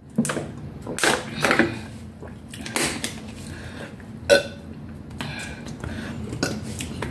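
Two people drinking water from plastic bottles: a string of short gulps and burps, each sound separate, spread a second or so apart.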